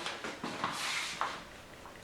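Parts of the 5R55S automatic transmission being handled and set in place: a few light knocks, then a brief scraping rustle ending in a sharper knock about a second and a quarter in.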